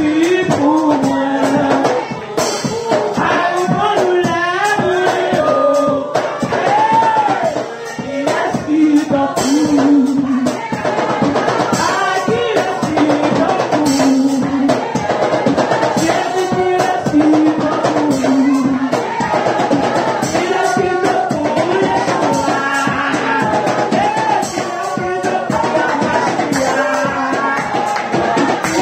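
Worship song: a woman singing lead through a microphone over a steady drum-kit beat.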